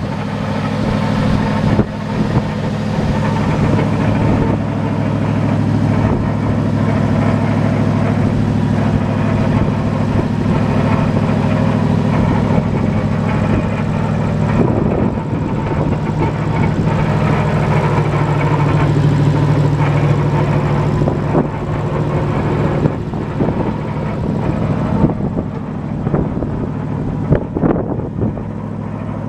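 Gasoline engine of a 1967 Chevrolet C50 grain truck running steadily while the hydraulic hoist has the grain box tipped up. The engine note shifts about halfway through.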